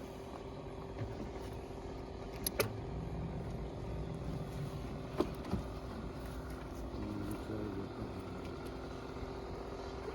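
Steady low hum and rumble in the background, with a few sharp clicks and knocks: two close together about two and a half seconds in, and two more about five seconds in.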